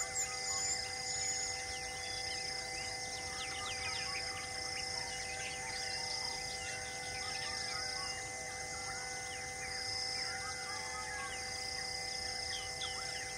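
Forest ambience: many birds chirping and calling in short swooping phrases, over a steady high insect drone, with a short high note repeating about once a second.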